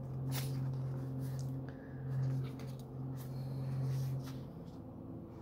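Light paper rustles and taps as a small tarot guidebook and cards are handled, over a steady low hum that stops about four and a half seconds in.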